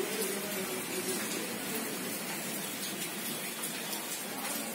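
Cloth rustling as a sewn skirt and its lining are bunched and turned right side out by hand, over a steady hiss.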